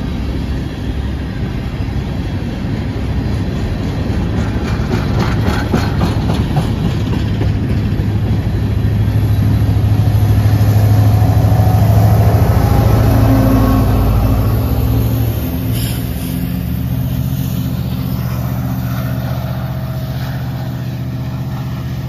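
Empty coal hopper cars rolling past, their wheels clicking over the rail joints. Then a BNSF EMD SD70ACe diesel locomotive passes close: its two-stroke V16 engine makes a steady low drone that builds, is loudest about ten to fourteen seconds in, and then eases off.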